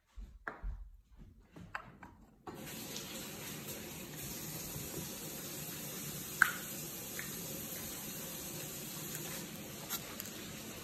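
Steady rushing noise of running water, starting abruptly about two and a half seconds in, with a sharp click about six seconds in and a smaller one near the end.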